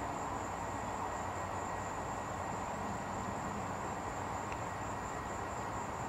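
Steady insect chorus, a constant high trill, over an even background hum, with no distinct alarm beeps.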